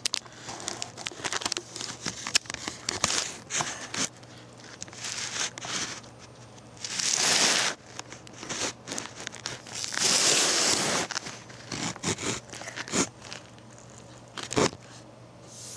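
Handling noise of the recording device being picked up and moved about, mixed with rustling, crinkling and clicks as things are set out on a table, with two longer rustling stretches about seven and ten seconds in.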